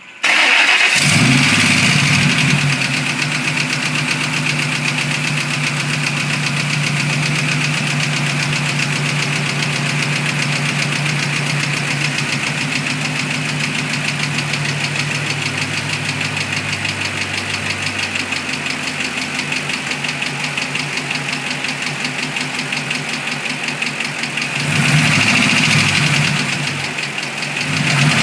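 A 2006 Ford Mustang GT's 4.6-litre V8 starting and idling with a fast, steady tapping/ticking from the top end, revved briefly near the end. The tick comes from a failed camshaft roller follower on the passenger side whose roller bearing has worn a cam lobe almost round.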